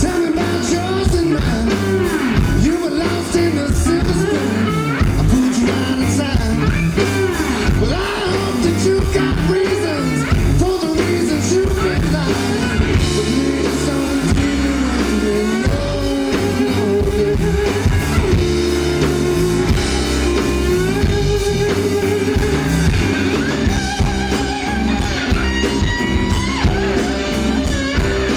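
Live electric blues band playing: electric guitars and drum kit, with a man singing.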